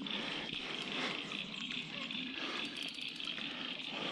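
Crickets chirping in a steady, pulsing high trill.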